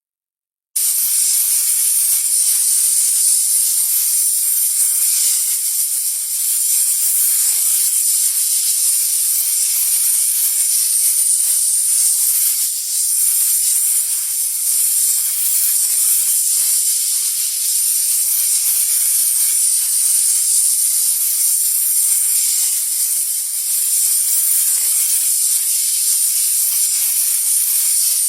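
Snake hissing: a long, steady, airy hiss that starts about a second in and holds with only small dips in level.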